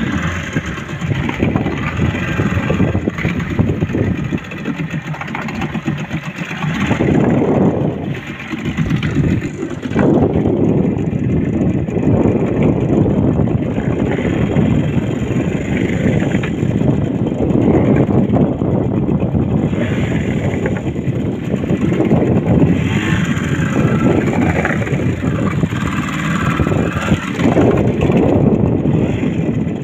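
Fishing boat's engine running, its level rising and falling.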